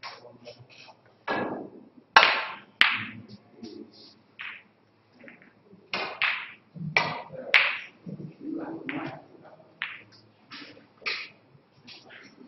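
Snooker balls clicking and knocking: a cue striking the cue ball, then a string of sharp, irregular clicks and knocks, the loudest about two seconds in and again between six and eight seconds.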